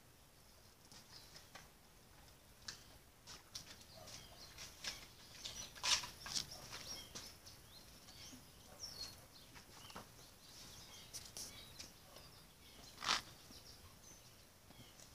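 Faint rustling and scattered clicks, with a few short high chirps, from small animals moving and feeding in a wire pen. Two sharper clicks come about six seconds in and again near the end.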